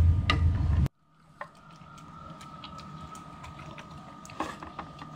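A loud low rumble that cuts off abruptly about a second in, then a golden retriever puppy eating from a bowl: faint wet chewing with a few clicks, over a faint steady hum.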